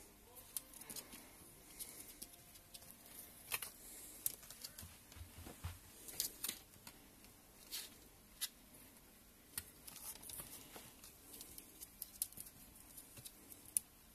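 A ferret moving about in a wire cage: scattered light clicks, scratches and rustles at an irregular pace, a few of them sharper and louder.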